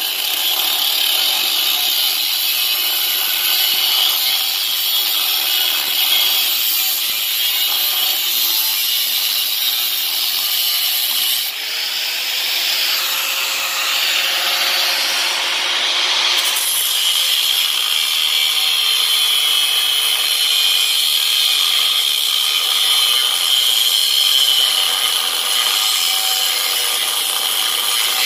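Angle grinder with a cutoff wheel running steadily as it scores and cuts a slot into a 2-inch aluminium tube, the loudness dipping briefly about eleven seconds in.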